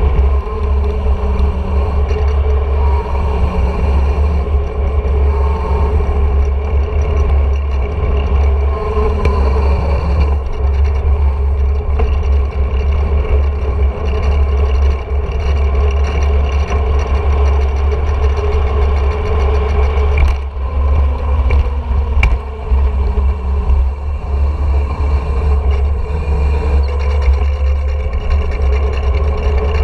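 Steady, heavy wind rumble on an action camera's microphone as a mountain bike speeds down an asphalt road, with a faint steady whir from the rolling bike underneath.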